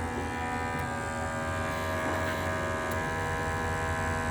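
Small electric pump motor humming steadily while brake fluid and air are drawn out of the brake system during a brake bleed.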